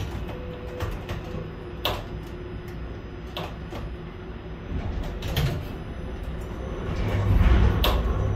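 Container gantry crane machinery running with a low rumble, broken by a few sharp metallic clicks and clunks; the rumble grows louder about seven seconds in.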